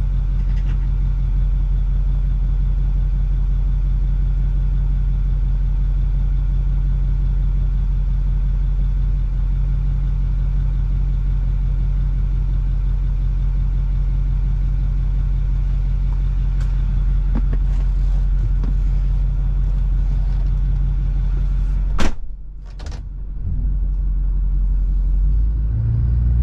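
The 6.4-litre Power Stroke V8 diesel of a 2008 Ford F-350 idling with a steady low drone. About 22 seconds in, a sharp click comes and the drone stops abruptly. A low rumble builds back near the end.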